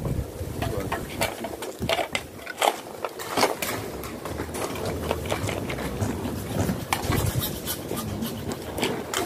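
Irregular clicks, knocks and scrapes, as of pipe and tools being handled, over a steady low rumble.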